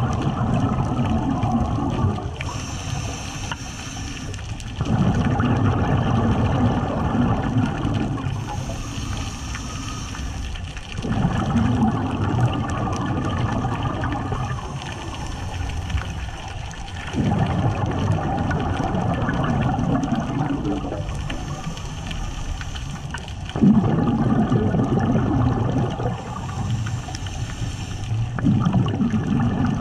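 Scuba diver breathing through a regulator underwater. A quieter hissing inhale alternates with a louder burst of exhaled bubbles, about every six seconds.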